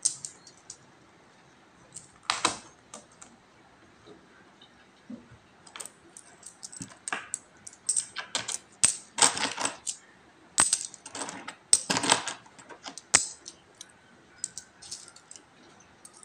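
Metal peso coins clinking against each other as they are picked up and stacked in the hand while being counted. The clinks come in irregular clusters, busiest in the middle.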